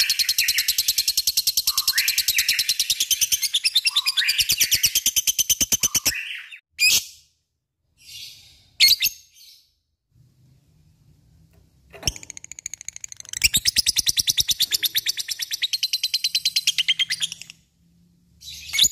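Lovebird chattering in long, rapid trills of evenly repeated high notes, the rattling 'ngekek' song. The first trill breaks off about six seconds in, followed by a few short calls and a pause, then a second trill runs from about thirteen to seventeen seconds.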